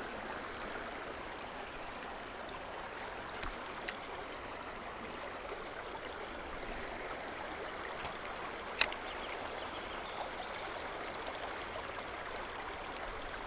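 Steady rush of the Missouri River's current flowing past the bank, with a faint tick about four seconds in and a sharper click about nine seconds in.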